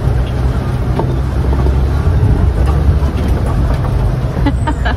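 Safari truck's engine running as it drives along, a steady low rumble with road noise, heard from inside the open-sided cabin. A few light clicks near the end.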